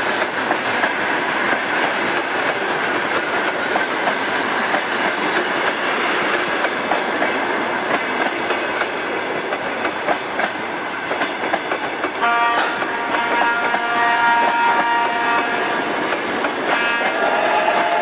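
Passenger carriages rolling past close by, wheels clicking over the rail joints with a steady rumble. About twelve seconds in, a train horn sounds as a held chord for a few seconds, then sounds again near the end.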